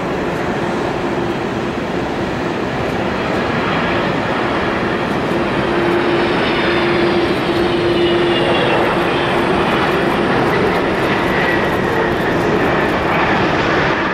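Boeing 767-300's twin jet engines on landing: a steady rush of jet noise with a turbine whine that slides down in pitch as the airliner touches down and rolls past.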